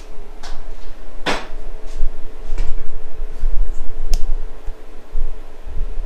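Handling noise from a camera being positioned and mounted: a scatter of sharp clicks and knocks, the loudest about a second in, with low rumble from the camera being moved, over a steady low hum.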